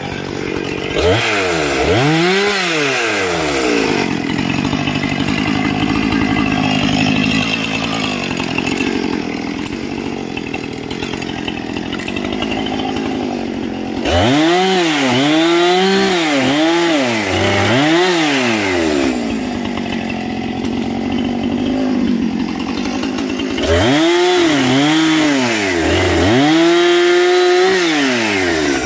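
Two-stroke chainsaw cutting branches off a felled tree, its engine revving up and down in repeated rises and falls of pitch. In between, it holds steady at high speed for several seconds at a time, about 4 seconds in and again about 19 seconds in.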